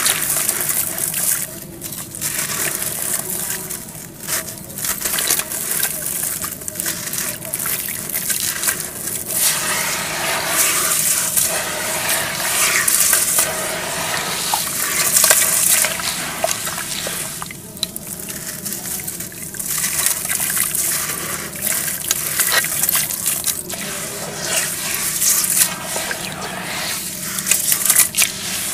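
Hands in a basin of muddy water crumbling a lump of dry gritty dirt and then squishing and swishing the wet mud: continuous splashing and sloshing water with small gritty crackles.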